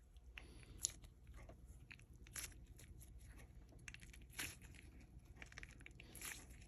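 Faint, scattered crunchy crackles and clicks from an ice cube fidget toy being squeezed in the hands.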